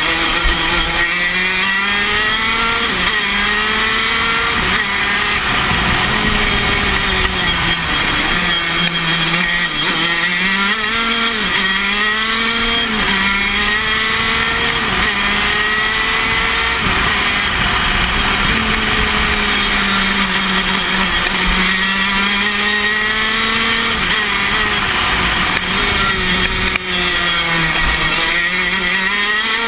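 Tony Kart KZ125 shifter kart's 125cc two-stroke engine at racing speed, heard on board, its note climbing and dropping back again and again through a lap of corners and straights.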